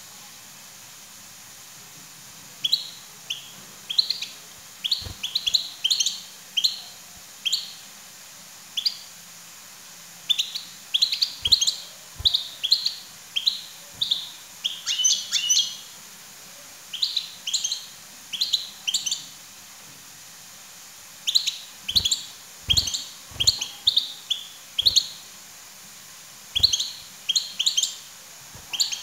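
European goldfinch chirping: short, bright calls in quick clusters, separated by pauses of one to three seconds.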